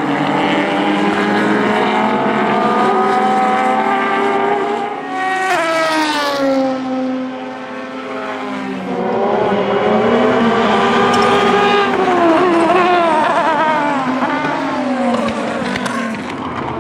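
Subaru BRZ GT300 race car's turbocharged EJ20 boxer four running hard, its pitch rising and falling through the gears. About five seconds in the revs drop steeply with a brief hiss. They climb again from about nine seconds and fall off after twelve.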